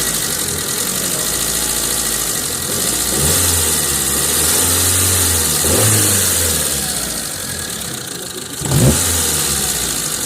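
Mitsubishi engine idling and being revved by hand: throttle blips about 3 and 6 seconds in and a sharper, louder one near the end. The mechanic diagnoses retarded ignition timing and a misfire from the sound.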